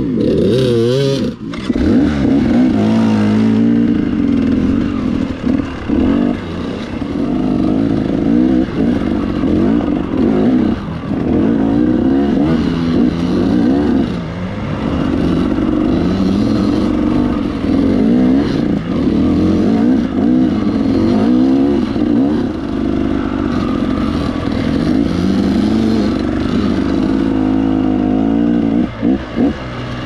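Dirt bike engine heard from the rider's seat as it is ridden along a rocky trail, the throttle opening and closing so the engine note rises and falls every second or two.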